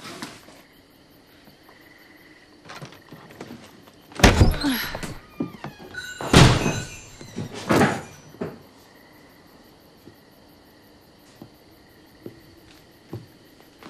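A stuck door being shoved and forced: a few light rattles, then three heavy thumps about two seconds apart, with scraping and knocking between them.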